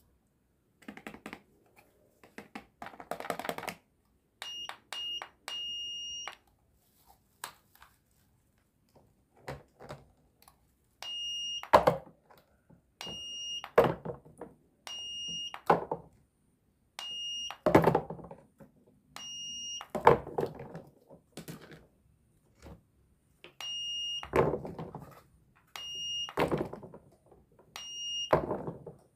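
Toy cash register's handheld scanner giving short high beeps, singly or in quick runs, every couple of seconds. Between the beeps come clattering knocks of toy fruit and vegetable pieces being handled and dropped into a plastic toy sink.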